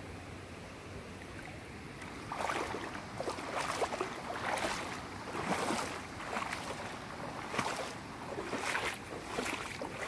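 A hiker's footsteps, about one a second, starting a couple of seconds in, over the steady rush of a creek.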